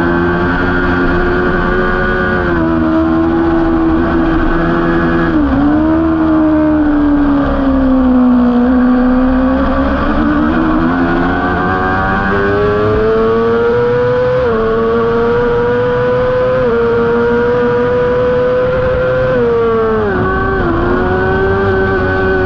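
Honda CBR600RR inline-four engine running at high revs under race riding. Its pitch falls and climbs over several seconds at a time, with sudden breaks and dips where it is shifted through the gears.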